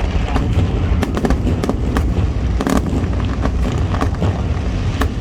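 A fireworks display bursting in quick succession: many sharp bangs and crackles over a continuous low rumble.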